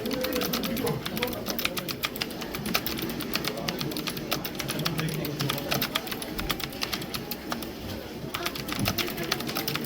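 ABKO Hacker K9100 ARC computer keyboard being typed on fast: a continuous rapid patter of key clicks, many strokes a second.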